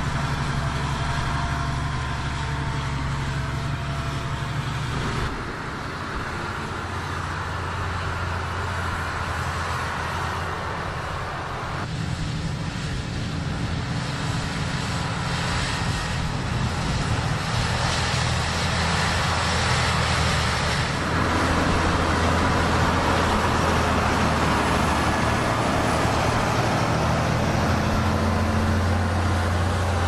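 Large Fendt tractors' six-cylinder diesel engines running steadily under load while pulling BOS Combo-Dozer levelling scrapers through ploughed soil. The engine note changes abruptly a few times, about 5, 12 and 21 seconds in.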